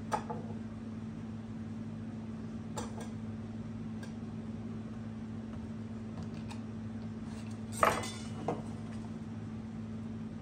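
A small wooden drawer and hand tools being handled on a wooden workbench: a few sharp knocks and clatters, the loudest about eight seconds in, over a steady low hum.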